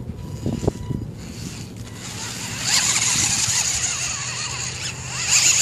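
Homemade radio-controlled 4x4 truck driving over grass. From about halfway through its motors and gears whine loudly, the pitch rising and falling as it speeds up and slows down, loudest near the end.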